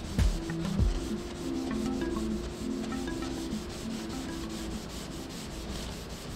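Sanding on car bodywork: a steady scratchy rubbing, with background music playing over it.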